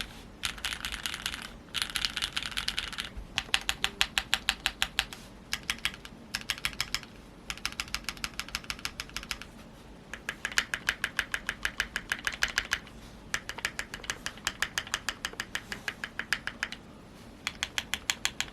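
Typing on a Keychron Q2 mechanical keyboard with lubed 50 g Gateron Milky Yellow Pro linear switches, a steel plate and PCB foam. The keys are struck in fast runs of several strokes a second, with short pauses of about a second between runs.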